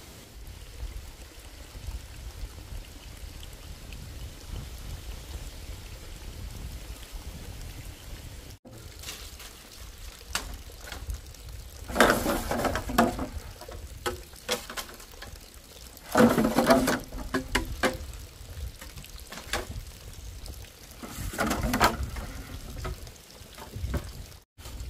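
Water being poured and splashing in three short bursts, over a low steady background rumble.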